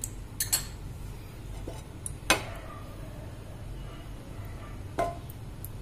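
A metal pan and spoon knocking and clinking a few times on the stove, four sharp knocks, the last with a short ring about five seconds in, over a low steady hum.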